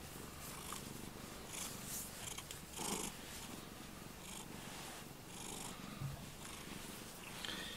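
A cat purring steadily while its belly is stroked, with a few soft rustles of hands on fur and blanket.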